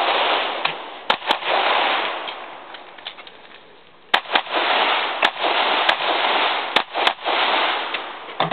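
Glock 17 9 mm pistol firing about eight shots in quick pairs and singles, each sharp crack followed by a long wash of echo.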